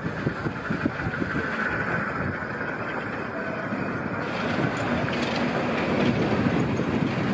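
Class 52 steam locomotive 52 8177 rolling slowly tender-first past at close range, its wheels and running gear knocking and clanking irregularly over a steady rushing noise, growing louder as it draws near.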